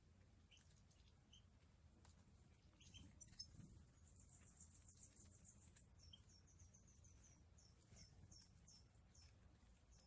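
Faint, high chirping of European goldfinches: a quick trill about four seconds in, followed by a run of short falling chirps.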